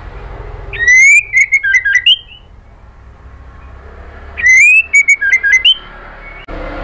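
White-rumped shama singing: two loud phrases of clear whistled notes, each opening with a rising slide and breaking into a run of quick, short notes, a few seconds apart.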